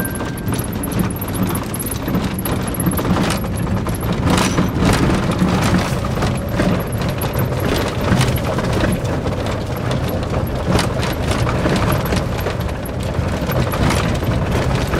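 Cabin noise of a 4x4 driving on a rough dirt track: a steady engine and tyre rumble with frequent rattles and knocks from the bumpy ground.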